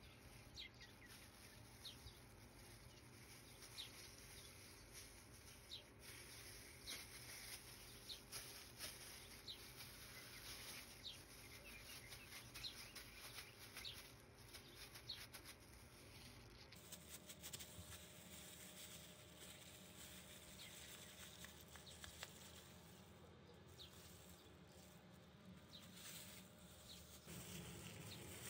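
Near silence with faint crinkling and ticking of a plastic bag and plastic gloves as hands press ground beef into a bag-lined lid to form a burger patty.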